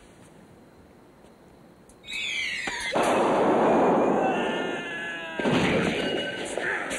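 Sudden loud crash about two seconds in, over a high scream that falls in pitch. Crashing noise follows, dips briefly, then surges again with a wavering cry in it.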